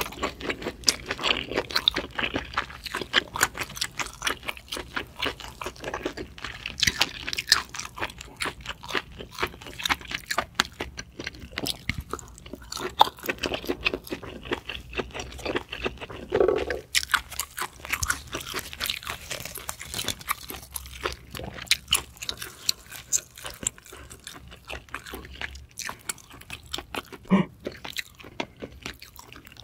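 A person chewing giant Japanese scallop meat, close to the microphone: a dense, steady run of small mouth clicks and smacks.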